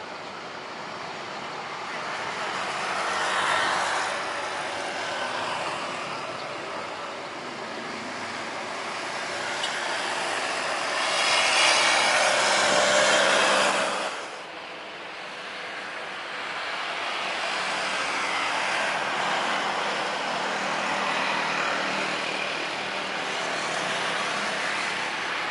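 Jet engines of a Boeing 737-800 (CFM56 turbofans) at taxi power, a steady roar and hiss that swells as the aircraft passes and is loudest once its exhausts face the listener, then cuts off suddenly about 14 seconds in. After that comes the steadier, softer engine noise of an Airbus A320 moving along the runway.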